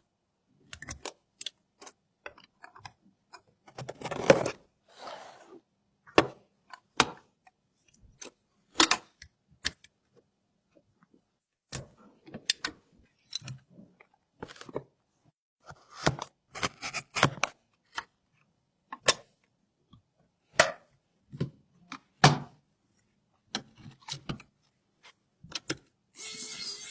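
Irregular clicks, taps and knocks with brief rustles, from computer parts being handled and fitted during a PC build.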